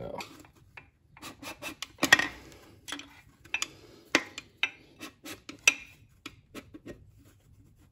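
Irregular light metallic clinks, knocks and scrapes as a connecting rod and its cap are worked in a Ford 4.6L four-valve DOHC V8 block to push a piston out of its bore.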